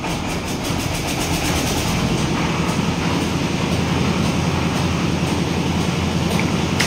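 An engine running steadily, building up over the first second and then holding even.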